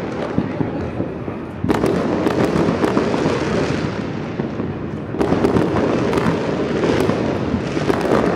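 Many fireworks and firecrackers going off at once: a dense, continuous crackling and popping that swells louder about two seconds in and again about five seconds in.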